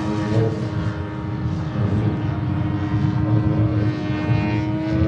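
JetCat turboprop engine of a 1:3 scale Grob G 120TP model plane driving its five-blade propeller in flight: a steady drone whose pitch sinks slightly, over a low rumble.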